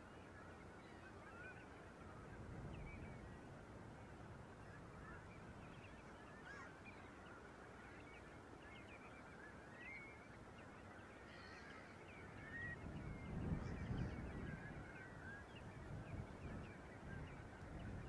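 Large flock of geese calling from a distance: a continuous, faint chatter of many short overlapping calls. A low rumble comes in during the second half.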